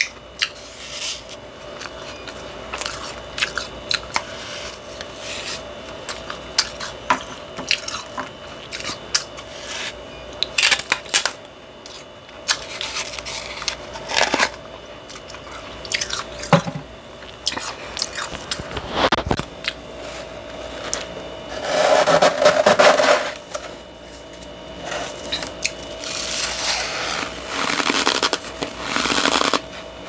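Soft, powdery freezer frost crunching in irregular crisp crackles and crunches, with a long loud run of crunching about two thirds of the way through and more near the end.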